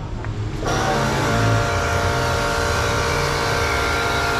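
A motor running steadily with a hiss, cutting in abruptly under a second in.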